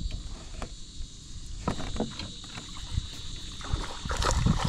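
Scattered knocks and thumps against a small plastic boat as a hooked bass is brought aboard, with a cluster of louder knocks near the end.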